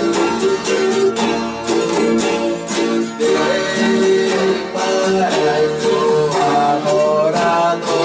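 Folia de Reis folk ensemble playing: strummed acoustic guitars in a steady rhythm, with a sliding melody line coming in over them about halfway through.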